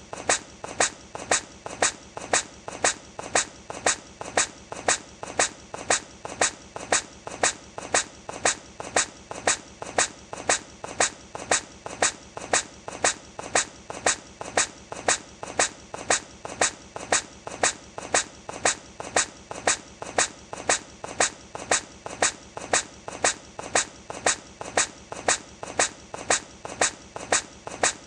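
A hedgehog's tiny sneeze, looped: short sharp sneezes repeating evenly, a little under two a second.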